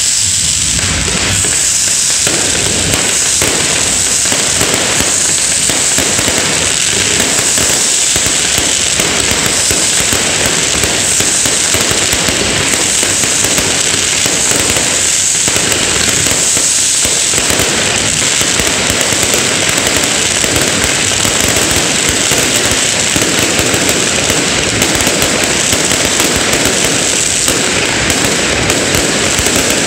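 Fireworks and firecrackers going off in a loud, dense, unbroken crackle.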